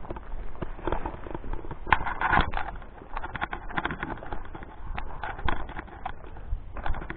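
Footsteps on sandy, gravelly ground: an irregular run of scuffs and crunches with some rustling of weeds.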